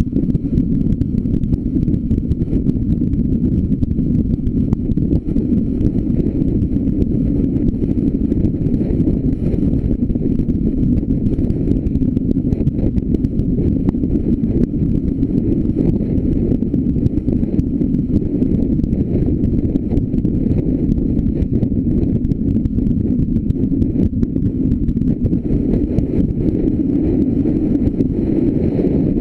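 A car driving at steady road speed, heard through a bonnet-mounted action camera: a loud, unbroken low rumble of wind buffeting the microphone, mixed with road and engine noise.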